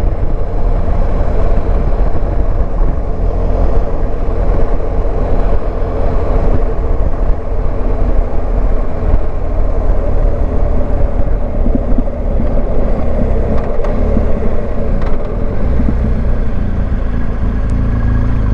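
BMW R1250GS motorcycle's flat-twin boxer engine running steadily while riding, with wind and road noise.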